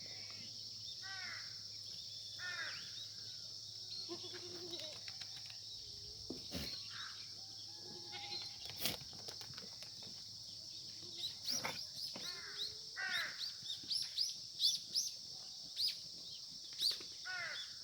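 Korean black goats bleating several times, over a steady high chirring of insects. From about the middle on, quick bird chirps come in as well.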